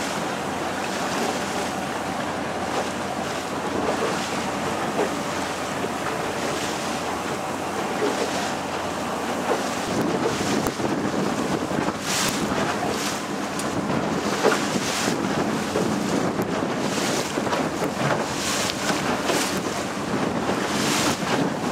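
Small motor boat under way: a steady engine hum under rushing water, with wind buffeting the microphone. The wind bursts come gustier in the second half.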